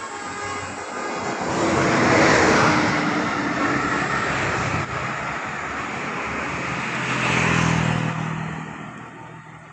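Bus driving past close by: engine and tyre rush swells about two seconds in, and again near eight seconds with a low engine drone, then fades away.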